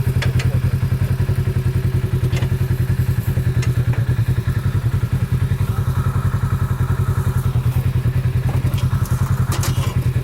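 Vehicle engine idling close by with a fast, even chugging pulse, with a few short knocks or clicks over it.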